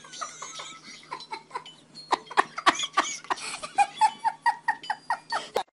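Laughter in quick, short, high-pitched repeated pulses, about four or five a second in the second half, mixed with short clicks, cutting off suddenly near the end.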